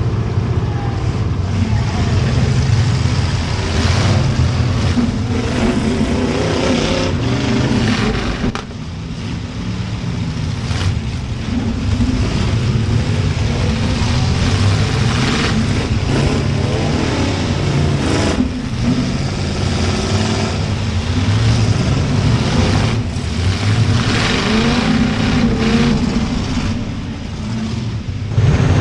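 Demolition derby car V8 engines running and revving up and down hard, with a few sudden knocks of metal impacts.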